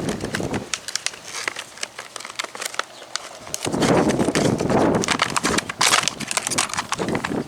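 Handling noise from a chainsaw sharpening kit: a run of sharp clicks and knocks, then a dense scraping, rustling stretch lasting about three and a half seconds from around halfway in.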